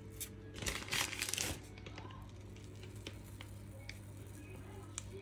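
Piping bag crinkling as it is squeezed to pipe a rosette of cookie dough, with one burst of crinkling about a second in, followed by a few faint ticks, over a steady low hum.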